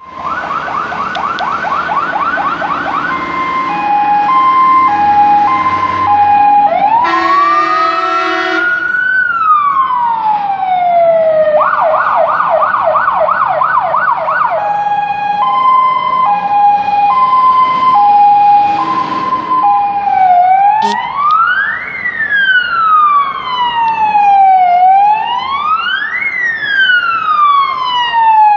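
Emergency vehicle sirens on fire engines running on an emergency call, cycling through a fast yelp, a two-tone hi-lo and a rising-and-falling wail, with a short blast of air horns about seven seconds in. From about twenty seconds in, a slow wail sweeps up and down about every four seconds.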